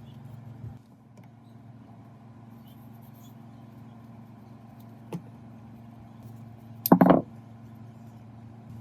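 A steady low hum, with one faint click about five seconds in and a short, loud cluster of knocks about seven seconds in.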